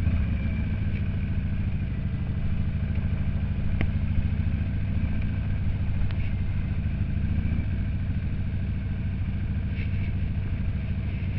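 Harley-Davidson Sportster's V-twin engine running steadily at low speed, with a single sharp click about four seconds in.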